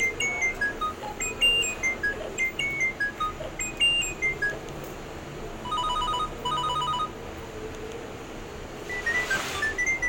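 Nokia 3200 mobile phone playing ringtones through its small speaker: a quick tune of short high beeping notes, then two short bursts of rapid repeated beeps in the middle, and another tune starting near the end.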